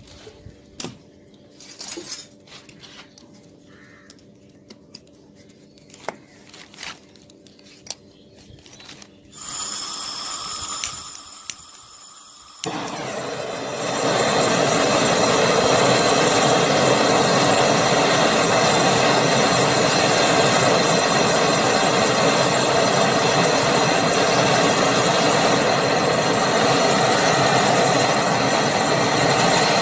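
A few faint clicks and handling knocks, then a little under halfway a gas brazing torch comes on and burns with a loud, steady hiss. The flame is heating a copper filter-drier joint to braze it into a freezer's refrigeration line.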